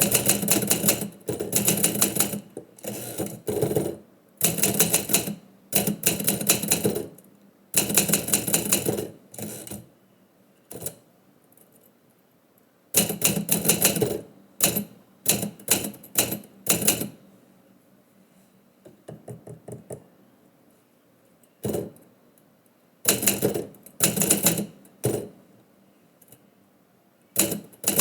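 Typewriter keys striking in quick runs of clicks, with pauses between runs: someone typing in bursts.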